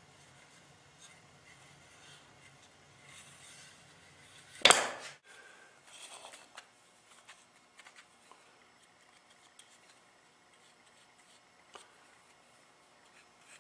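A single sharp knock about a third of the way through, dying away within half a second, then faint clicks and light handling noises.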